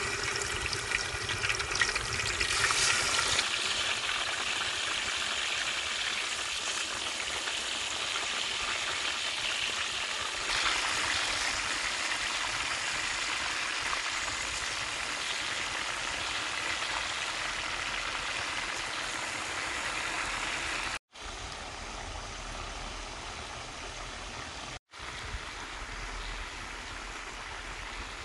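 Chicken wings deep-frying in hot soybean oil in a steel wok: the oil sizzles steadily, with crackling in the first few seconds. The sound breaks off briefly twice near the end.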